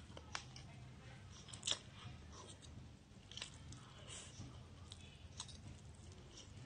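Mouth sounds of a person eating fried instant noodles: slurping and chewing with soft wet clicks and smacks, the loudest about one and a half seconds in.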